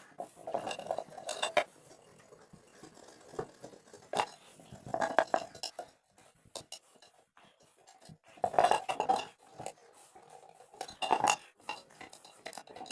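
A knife blade scraping and clicking against a pressure cooker lid as it cuts out the lid's hardened rubber safety valve. The sound comes in four or five short bouts of scraping and clicks with quiet gaps between them.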